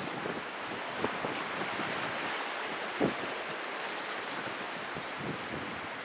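Small waves washing onto a sandy beach, a steady hiss, with wind buffeting the microphone and a brief thump about three seconds in.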